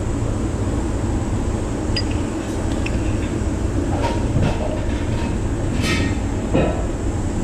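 Steady low rumble with a few sharp metallic clinks of tools and engine parts being handled, the clearest about two, four and six seconds in.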